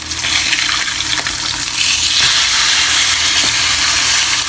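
Dried split round scad (daing na galunggong) sizzling in hot oil in a pan; the sizzle grows louder about two seconds in. A wooden spatula and metal turner knock lightly against the pan a couple of times. The fish still has ice on it from the freezer.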